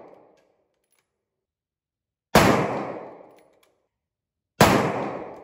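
Two shots about two and a quarter seconds apart from a muzzle-braked 6.5 Creedmoor bolt-action precision rifle, each a sharp report that rings out for about a second. The tail of a shot fired just before fades out at the very start.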